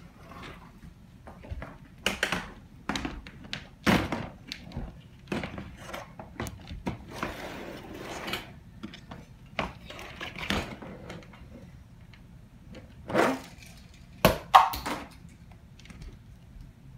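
Irregular knocks, thumps and scrapes of a child handling a plastic laundry basket and toys, with a few louder knocks near the end.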